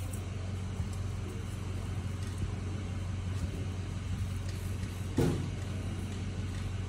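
Steady low mechanical hum, with a single short knock about five seconds in.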